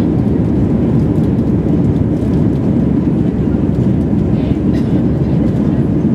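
Steady cabin noise of an Airbus A321 airliner in flight: an even, low roar of the jet engines and the rushing airflow, heard from a window seat.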